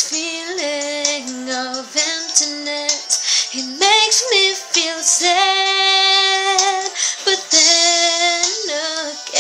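Female voice singing a slow melody, sliding between notes with vibrato and holding one long note about halfway through.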